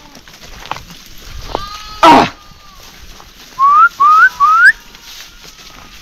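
A herder whistling three short rising whistles in quick succession to drive a flock of sheep, with sheep bleating faintly. A short, loud rushing burst of noise comes about two seconds in.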